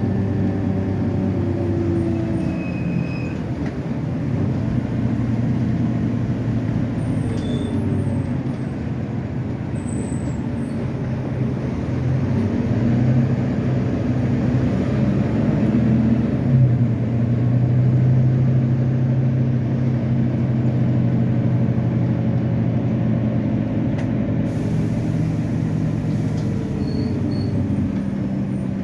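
Volvo B9TL double-decker bus's six-cylinder diesel engine running under way, its note rising and falling several times as it accelerates and changes gear.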